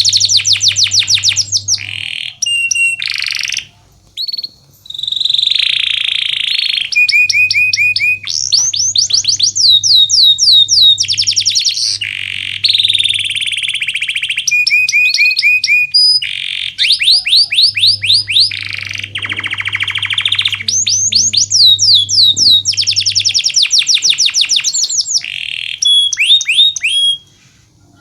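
A domestic canary in full song, running through long, fast trills and rolls of rapidly repeated sweeping notes. Its phrases break off briefly about four seconds in and again near the end.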